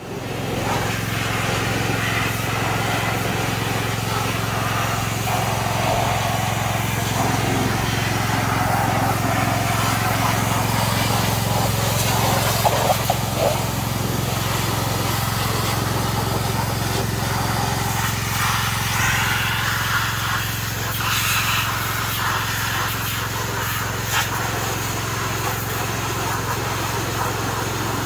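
Gas-engine pressure washer running steadily, its small engine humming under the hiss of the water jet spraying an ATV's wheels and suspension.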